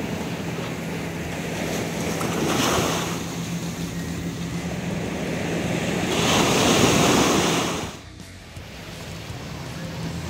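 Sea waves breaking on the shore, surging in twice with the second surge louder, then cutting off suddenly about eight seconds in.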